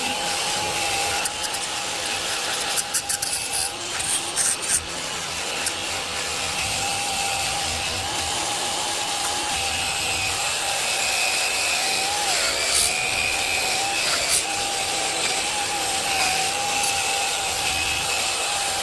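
Handheld power tool running steadily with a whine and a rough grinding noise, with a few sharp clicks in the first five seconds.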